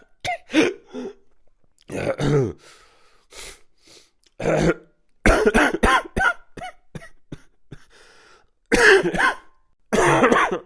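A person coughing and clearing their throat in a series of separate fits, a second or two apart. This is a stock sound effect.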